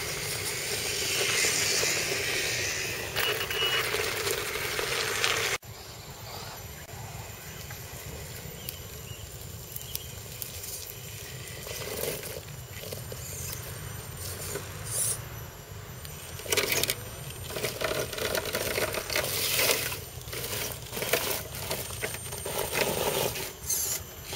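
Scale RC crawler truck, a Tamiya CR-01 Unimog, working through a rocky rut on a dirt trail: its tyres crunch and scrape over gravel, dirt and dry leaves in irregular crackling bursts. The sound is louder for the first few seconds, then drops suddenly.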